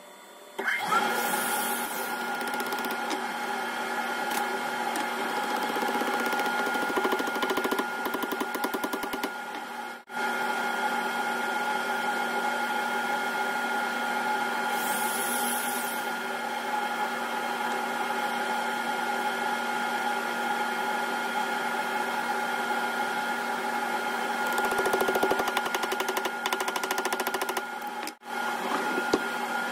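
A small electric motor starts about a second in with a short whine and then runs at a steady pitch. It drops out briefly twice, around ten seconds and again near the end.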